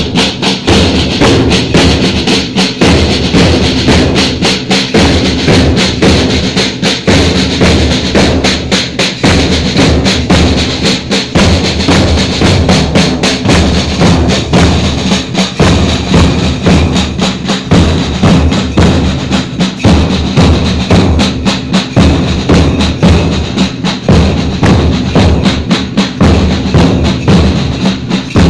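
School drum band playing a continuous fast beat: rapid snare drum strokes over bass drum.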